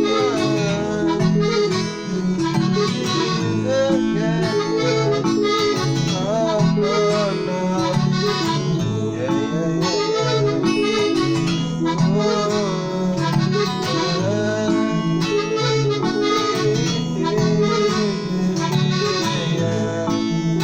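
Music playing: a song with a pulsing bass and a wavering melody line over it.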